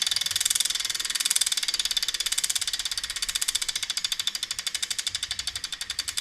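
Bicycle rear-hub freehub pawls ticking rapidly as the carbon wheel coasts after the crank is spun. The clicks gradually slow and fade as the wheel loses speed. The ticking is relatively quiet for a freehub.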